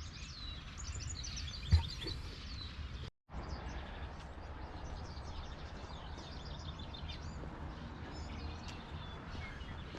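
A flock of swallows twittering and chirping with many short high calls, over a steady low background noise. A single sharp knock sounds a little under two seconds in, and the sound drops out completely for a moment just after three seconds.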